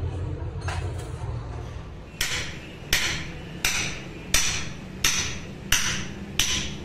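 Hammer striking a dump truck's steel steering knuckle during king pin and bush replacement. After a faint knock there are seven sharp blows, evenly spaced about 0.7 s apart from about two seconds in, each ringing briefly.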